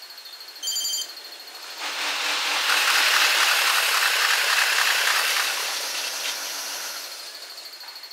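An electric commuter train passing, heard as a rushing noise that swells about two seconds in, is loudest in the middle and fades away near the end. Shortly before, a brief high beep sounds.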